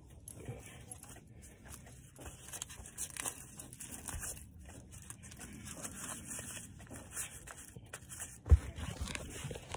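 Fabric rustling and rubbing as a hi-vis safety vest is pulled on and fastened close to the microphone, with scattered small clicks. One sharp thump near the end.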